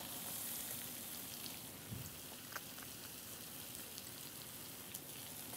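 Diced onions sizzling faintly in a hot stainless steel sauté pan, a steady soft hiss with a few small clicks.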